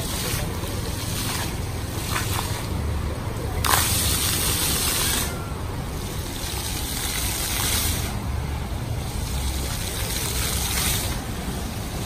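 Water from a row of small ground-level fountain jets splashing onto wet paving, a steady hiss that grows stronger and weaker every second or two as the jets change.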